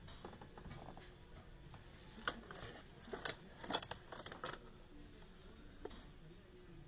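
Ornate metal vanity pieces, a hairbrush and a hand mirror, clinking and rattling against each other in a cardboard box as they are set down and picked up. There is a cluster of sharp clinks through the middle and one more near the end.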